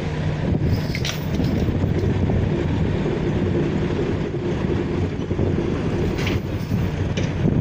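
Engine running steadily with a low, even hum, with a few sharp knocks and clanks over it.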